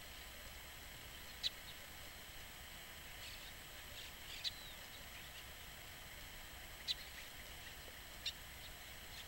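Small birds giving short, sharp high chirps, four spread a second or more apart, over a faint steady outdoor hiss.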